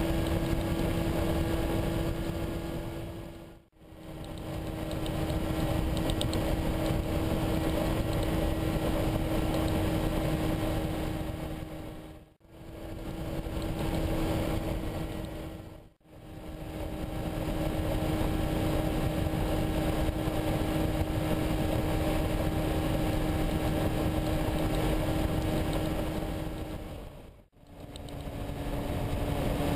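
Weight-shift microlight trike's engine and pusher propeller droning steadily in cruise flight, with a rush of wind. The sound briefly fades out and back four times.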